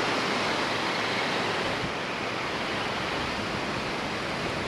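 Small surf breaking and washing up the sand in a steady rush.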